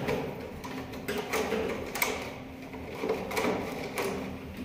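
Wires being worked into the breaker terminals of an electrical control panel by hand: several light clicks and rustles, a little under a second apart.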